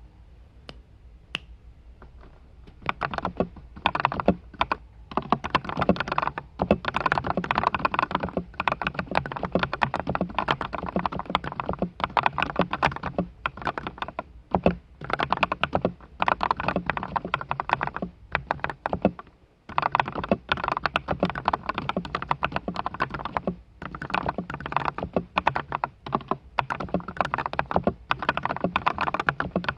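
Fast typing on a custom MonsGeek MG108W mechanical keyboard with lubed Kang White V3 switches, foam-dampened plate and case, lubed stabilizers and Shimmer XDA keycaps. It is quiet for the first few seconds apart from one keystroke, then keys clatter rapidly, with a brief pause about two-thirds of the way through.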